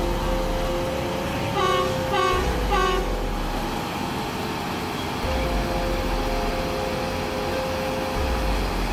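Diesel-powered 08-16 multiple tie tamper running as it shunts along the track, a steady drone, with three short horn toots about one and a half seconds in.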